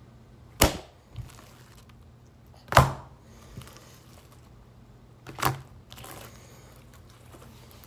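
Three sharp snaps from a handful of rippy, jiggly homemade slime being played with by hand, a couple of seconds apart.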